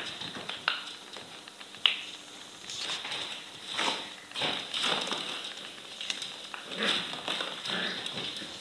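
Two Soft Coated Wheaten Terrier puppies playing on a tile floor, tugging a rope toy: claws scrabbling and pattering on the tiles, a few sharp clicks, and small puppy play noises in irregular bursts.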